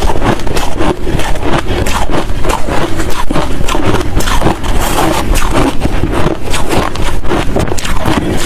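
Close-miked chewing of hard crushed and shaved ice: dense, loud, continuous crunching with many sharp cracks a second.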